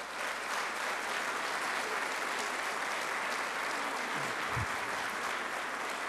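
Audience applause: many people clapping steadily.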